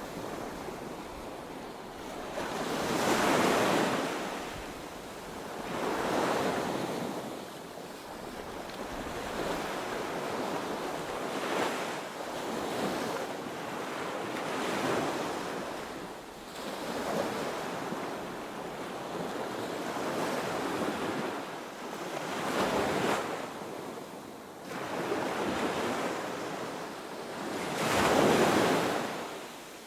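Ocean waves breaking on a beach: a rushing surf that swells and fades with each wave every few seconds, the loudest crash coming near the end.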